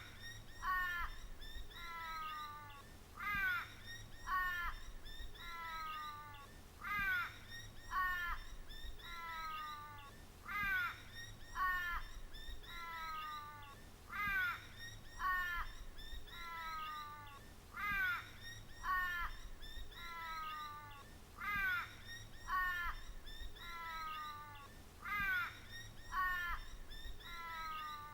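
Repeating bird-like calls, short cries that fall in pitch, about one a second with a louder pair every few seconds, looping without a break over a faint low hum.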